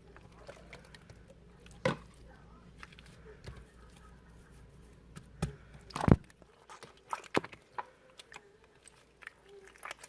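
Handling noise: irregular small clicks and taps, with a few sharper knocks, the loudest about six seconds in.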